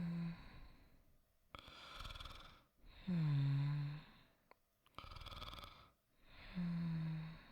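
A person's soft, performed snoring in slow, regular breaths about every three seconds. Each breath is a breathy rasp followed by a low hummed snore that dips in pitch.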